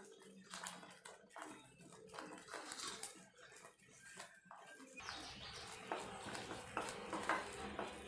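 A metal spoon stirring thick curry gravy in an aluminium kadai: soft squelching with small scrapes and clicks against the pan. About five seconds in a low background hum comes in.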